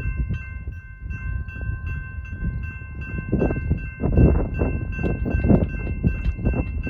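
Railroad grade-crossing warning bells ringing in quick repeated strikes while the crossing gates lower. Under them runs a loud low rushing noise that swells in gusts from about three seconds in.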